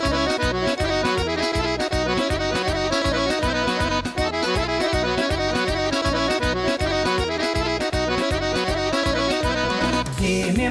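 Accordion-led folk dance music with a fast, steady beat, about three to four beats a second.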